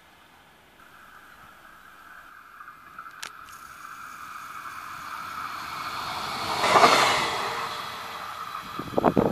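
Stadler GTW articulated electric railcar approaching and passing close by, a steady high whine over rising rail and running noise that peaks about seven seconds in and then fades as it moves away. A single sharp click about three seconds in and a quick run of knocks near the end.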